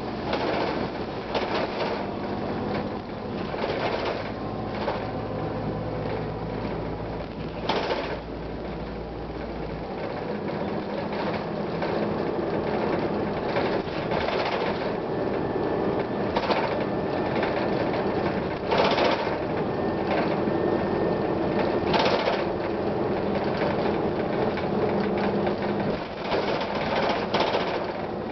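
Transit bus running with its Series 50 diesel engine droning, the body rattling and knocking repeatedly. The low drone shifts about ten seconds in.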